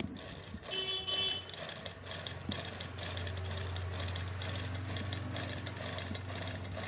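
Sewing machine running and stitching a test piece of cloth, a steady hum with rapid needle-and-shuttle clatter from about three seconds in, as a check of the shuttle setting that was causing thread breakage. A brief high tone sounds about a second in.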